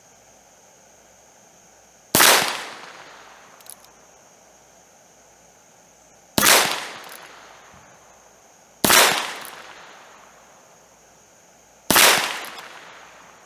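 Four shots from a .22 rimfire Heritage Rough Rider single-action revolver, fired one at a time at uneven intervals of two to four seconds, each a sharp crack with a short echoing tail.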